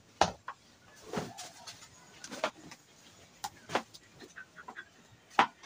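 A handful of sharp knocks and clatters at irregular intervals, with light handling noise between them.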